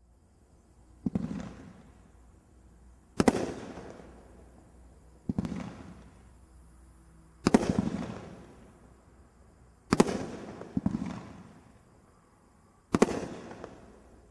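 Tang Dynasty consumer firework going off: seven sharp bangs, each trailing off over about a second, spaced about two seconds apart, with two coming in quick succession about two-thirds of the way through.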